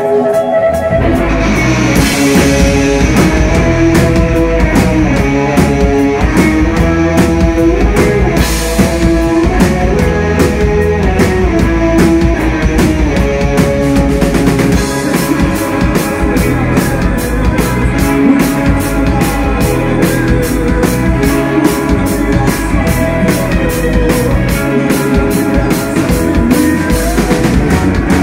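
A rock band playing live and loud: electric guitars, bass and a drum kit, the drums settling into a driving beat of steady cymbal hits about halfway through.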